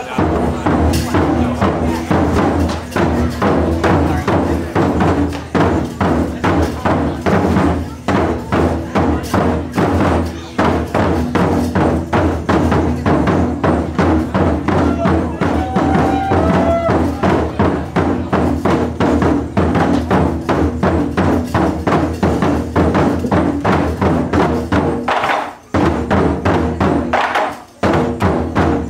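Japanese taiko drum ensemble playing a fast, driving rhythm of strokes on several barrel drums, with two brief breaks near the end.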